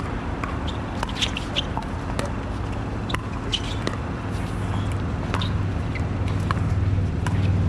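Pickleball paddles striking the hollow plastic ball in a doubles rally: sharp pops at irregular intervals, a few a second at times, over a steady low hum.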